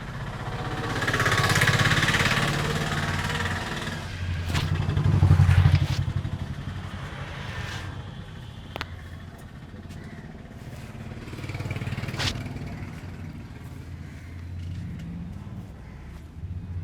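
Motor vehicles going past, their engines swelling and fading twice in the first six seconds and then rumbling on more quietly, with a few sharp clicks.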